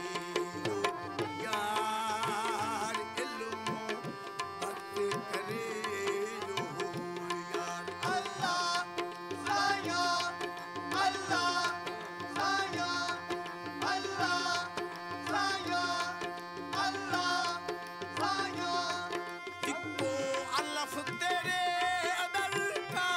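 Live Sufi folk music: tabla drumming with dholak over held harmonium notes, with a short melodic phrase repeating about every second and a half through the middle.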